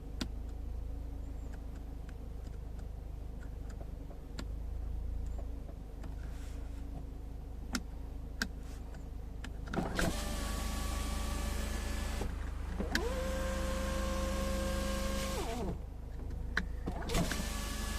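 Power window motor of a Mercedes-Benz A180 whining as the glass travels, starting about ten seconds in, dropping to a lower, steadier pitch partway through and stopping, then starting again near the end. Before it there is only a low steady hum with a few light clicks.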